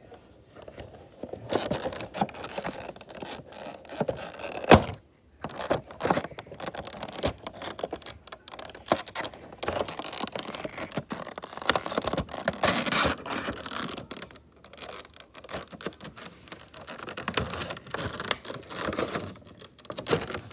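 A cardboard Funko Pop box being opened by hand and its clear plastic insert pulled out: irregular scraping and rustling with many sharp clicks, the sharpest about five seconds in.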